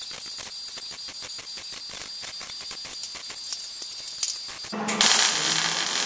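MIG welder laying a fillet weld along a body seam: the arc crackles rapidly, then switches to a much louder, steady hissing sizzle about five seconds in.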